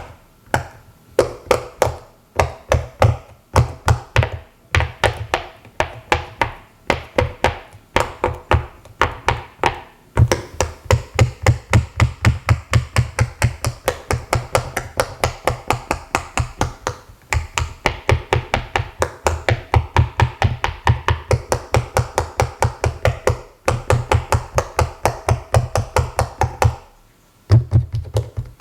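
Silicone Pop It fidget toy's bubbles being pushed through one after another: a quick, steady run of soft pops, several a second, broken by a brief pause near the end.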